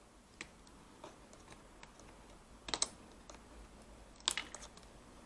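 Sharp plastic clicks and snaps from a laptop keyboard being pried loose and handled: scattered single clicks, with louder quick clusters about three seconds in and again just after four seconds.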